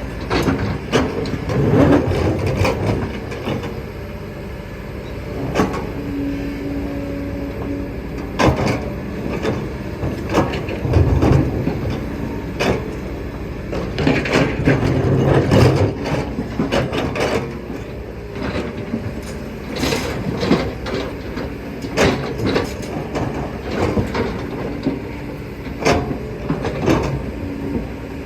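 Kobelco excavator working: its diesel engine runs steadily under load, with frequent sharp knocks and clanks of the bucket and rock throughout.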